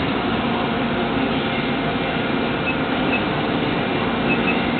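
Injection moulding machine running with its mould closed: a steady mechanical hum and hiss, with a few faint, short, high tones in the second half.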